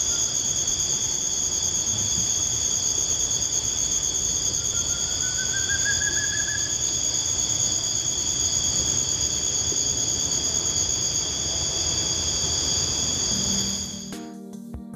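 Evening insect chorus: several steady, high-pitched trills layered together over a low background hiss, with a single rising whistle about five seconds in. The chorus cuts off near the end, where music begins.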